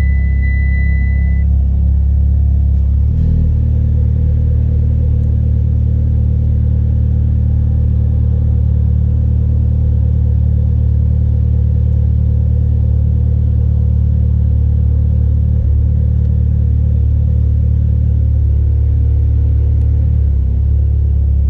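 Built 2.0-litre 4B11T turbocharged four-cylinder of a 2008 Mitsubishi Lancer Evolution X GSR idling steadily through its aftermarket exhaust, a deep even note with a small change in pitch about three seconds in. A steady high tone sounds over it for the first second or so.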